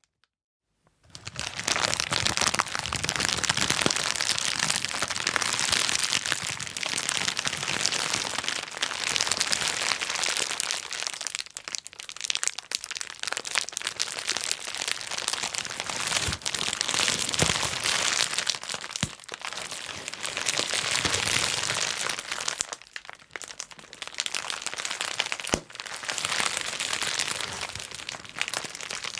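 Bubble wrap being popped and crumpled: a dense, continuous run of sharp pops and cracks over plastic crinkling. It starts about a second in, after a moment of silence, and eases briefly a few times.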